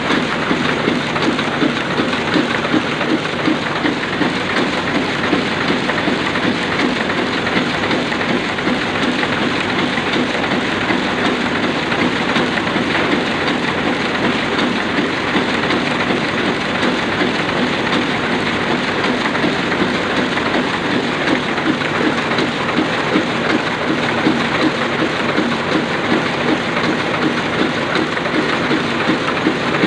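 Sakurai Oliver 66 sheetfed offset printing press running steadily, a dense, even mechanical clatter that does not change.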